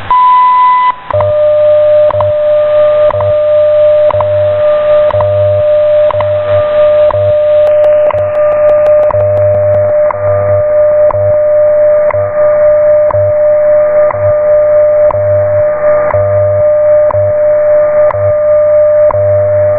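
WWV shortwave time signal received in AM: the 1 kHz top-of-minute tone lasts under a second, then a steady 600 Hz tone plays with a short tick once a second. Underneath runs the 100 Hz time code, a low hum switching on and off in pulses of differing length, with a fainter second tone just below the main one. Static hisses throughout and turns duller about eight seconds in.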